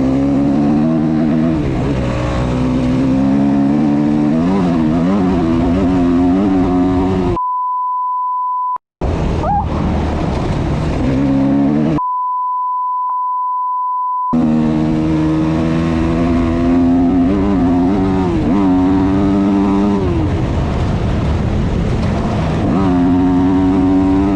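Yamaha YZ250F motocross bike's single-cylinder four-stroke engine running under riding load, its revs rising and falling with the throttle. Twice the sound is replaced by a steady high beep, about one and a half and two seconds long.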